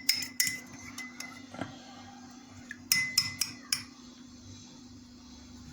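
A metal utensil clinking against a bowl in quick strikes, each with a short ringing tone: a few near the start and another cluster about three seconds in, over a steady low hum.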